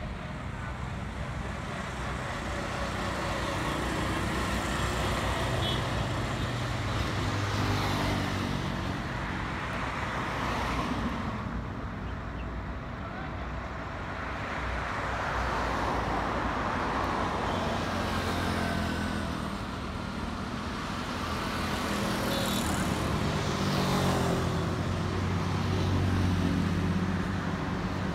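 Light road traffic: cars, motorcycles and auto-rickshaws passing one after another, the engine hum and tyre noise swelling and fading every few seconds.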